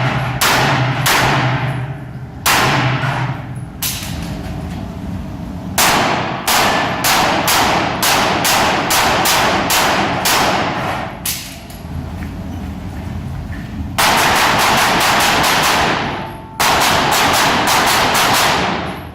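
Pistol shots fired in quick strings with short pauses between them, each crack trailing off in a short ring. The fastest, densest strings come in the last few seconds.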